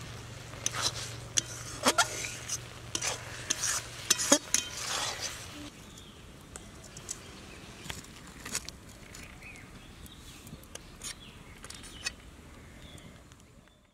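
Metal spatula stirring and scraping through thick jujube pickle in a metal cooking pot, clinking sharply against the pot's sides over a steady sizzling hiss. After about six seconds it thins to a few scattered light clicks.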